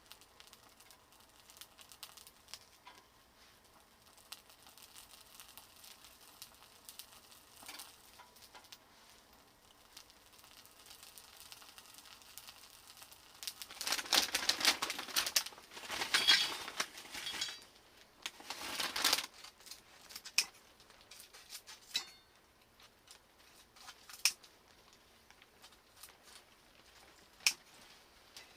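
Handling noises: scattered light clicks and clinks, with a few loud bursts of rustling or crinkling about halfway through.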